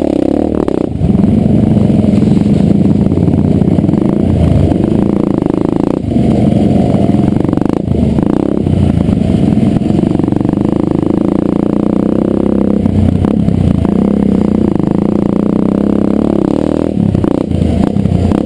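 Dirt bike engine running, the revs rising and falling as the throttle is opened and closed, with short drops when it eases off.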